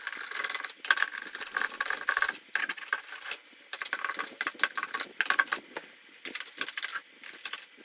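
Screwdriver unscrewing a screw from the plastic top panel of a party-box Bluetooth speaker: a quick run of small clicks and squeaky scratches, in several bursts with short pauses between turns.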